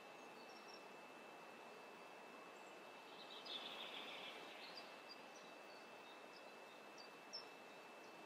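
Near silence: faint steady hiss with a thin high tone, and faint bird chirps, busier about three and a half seconds in. A small click comes near the end.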